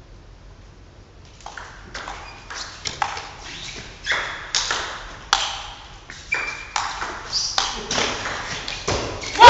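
Table tennis rally: sharp clicks of the ball off bats and table, two to three a second, with hard-hit strokes ringing in the hall. A crowd bursts into cheering at the very end as the point is won.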